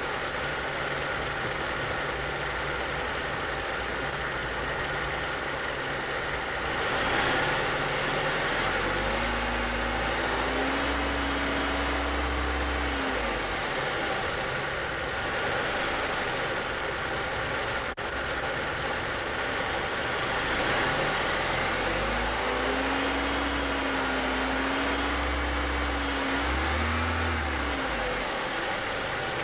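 2000 Chevrolet Cavalier's 2.2-litre four-cylinder engine idling, revved up twice and held for several seconds each time, first about a third of the way in, then again past two thirds. This is the revving at which the owner hears a ticking from low on the engine, which he thinks could be a slack timing chain.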